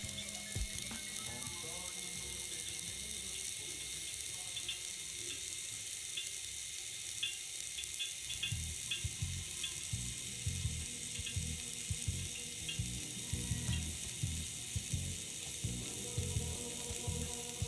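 Flux-core arc welding: the wire-feed welder's arc gives a steady crackling sizzle. From about halfway in, an irregular low-pitched thumping runs under it.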